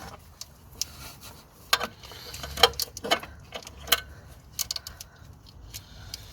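Irregular light clicks and taps as a new clutch cable on a 2003 Suzuki Wagon R is handled and routed through its clamp in the engine bay. A few of the taps ring briefly.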